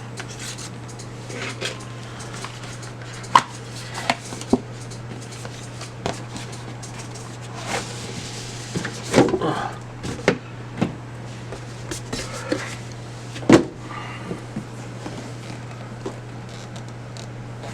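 Cardboard box and packaging being opened and handled: scattered clicks, taps and short rustles, with one sharp knock louder than the rest about two-thirds of the way through, over a steady low hum.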